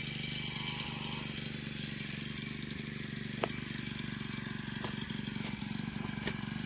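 Small petrol engine of a brush cutter (grass cutter) idling steadily, with a few faint clicks.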